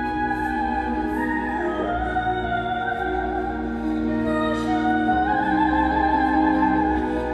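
Music in an operatic style: a slow, held melody with vibrato over sustained chords.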